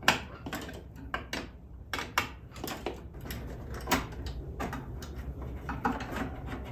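Scattered clicks and light metallic knocks of a wrench on the clutch hydraulic line fitting at the master cylinder and of the steel line being worked loose by hand, with a sharp click at the very start.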